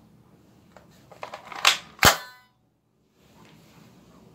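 Iron Man Nerf dart blaster being primed and fired: a few light plastic clicks, a louder rattling slide stroke about a second and a half in, then one sharp snap of the shot just after two seconds.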